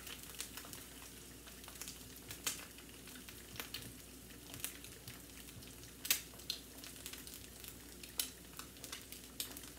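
Two eggs frying in oil in a nonstick pan over a gas flame: a steady sizzle with irregular sharp crackling pops, a few louder pops standing out.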